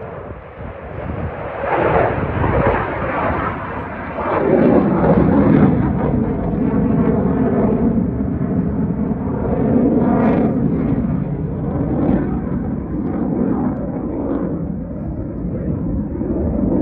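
Military jet fighters flying past: loud jet engine noise that swells about two seconds in, grows stronger around four seconds in, and stays loud, with a slowly shifting hollow, phasing tone.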